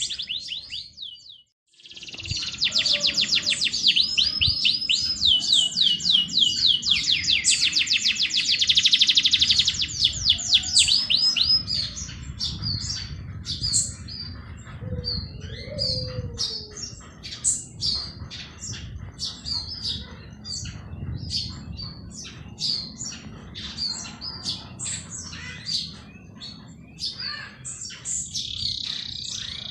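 Songbirds singing: after a brief dropout, a fast, ringing trill of rapidly repeated high notes goes on for about ten seconds, then gives way to scattered short chirps. A low rumble lies underneath throughout.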